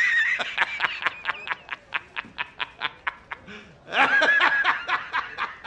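A man laughing hard. It opens on a high held note, breaks into a rapid run of short 'ha's about five a second, and climbs to a second high peak about four seconds in before breaking into short laughs again.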